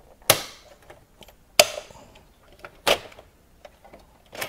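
Four sharp clicks, about a second and a half apart, as the fan wall of a Dell PowerEdge R720XD server is unlatched and worked loose from the chassis.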